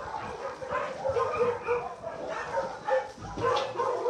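Several dogs barking and yipping, a steady run of short barks, with a sudden thump right at the end.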